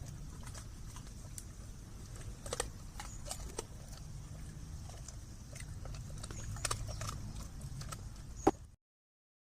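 Great Dane chewing and crunching food, with irregular sharp clicks and crunches over a low steady hum. The loudest crunch comes near the end, and the sound then cuts off abruptly.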